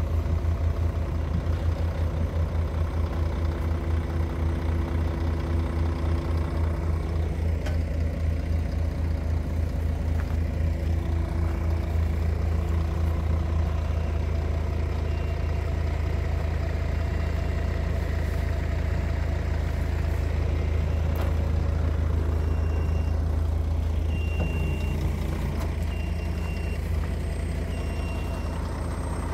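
A heavy truck's diesel engine idling steadily, with a strong low hum. Over the second half a short, high electronic beep repeats every second or so.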